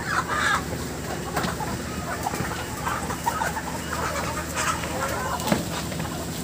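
A crowd of broiler chickens clucking and squawking as they are caught and handled, over a steady low hum, with one sharp knock about five and a half seconds in.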